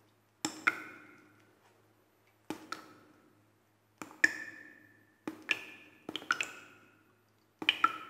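Water drops falling into water, each landing as a sharp plink with a short ringing tone, in pairs or clusters of two or three every second or two.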